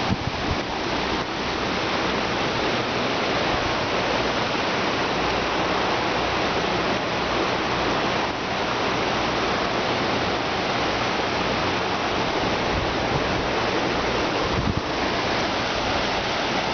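Swollen river in flood, its brown water rushing and churning over rocks in a steady, loud rush.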